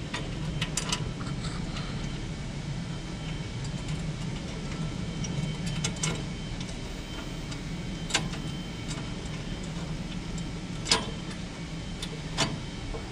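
Scattered light clicks and clinks of screws and metal grill parts being handled and set in place by hand, over a steady low hum.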